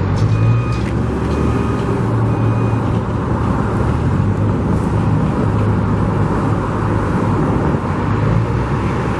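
A large vehicle's engine running close by, a steady low drone with road-traffic noise. For the first three seconds a reversing beeper sounds about once a second, then stops.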